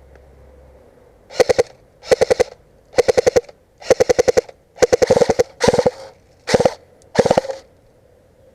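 Airsoft replica firing about eight short automatic bursts, each a quick run of sharp clacking shots.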